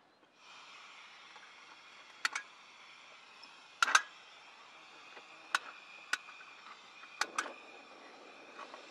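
Camping gas stove hissing steadily once its gas is turned on about half a second in, as it is lit to boil water. Several sharp clicks sound over the hiss, the loudest a pair about four seconds in.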